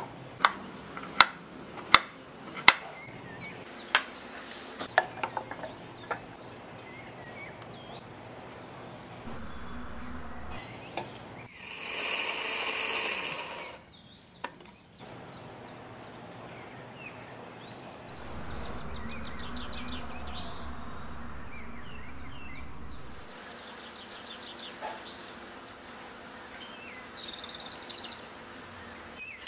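A knife knocking on a wooden cutting board in a handful of sharp, separate strokes, then a small electric blender grinding chilli-spice paste for about two and a half seconds. Birds chirp faintly in the background.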